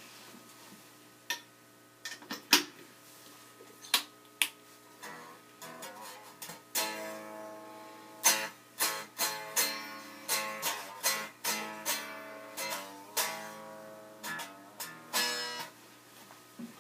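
Electric guitar strings picked and strummed unamplified, heard only as the thin, quiet sound of the strings themselves because the amp is not sounding: the effects chain was left unplugged. Single scattered picks at first, then a run of plucked notes and strummed chords from about seven seconds in.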